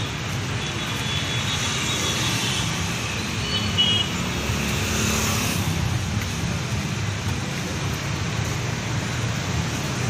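Steady road traffic noise, with vehicle engines running close by as a low rumble and a brief hiss of a passing vehicle about five seconds in.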